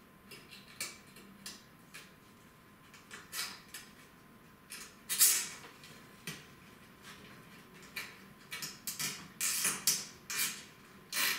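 Plastic cable ties being pulled tight around computer power cables, with the cables rustling and tapping against the metal PC case: irregular short rasps and clicks, the loudest about five seconds in and a quick run of them near the end.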